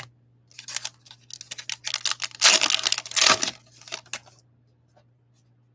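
Plastic wrapper of a Topps Holiday baseball card pack crinkling and being torn open by hand: a flurry of crackles, loudest in a stretch a little past the middle, that dies away about four seconds in.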